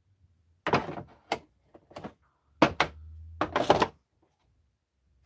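Hard plastic knocks and clicks as screwdrivers are handled and snapped into a moulded plastic insert tray in a carrying case: single knocks about a second and two seconds in, then a quick clattering run of knocks around three to four seconds.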